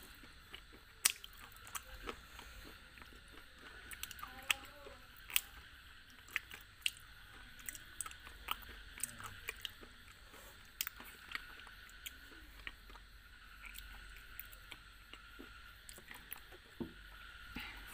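Close-miked chewing of a hard, crunchy food, with sharp crunches coming at irregular intervals, sometimes several a second.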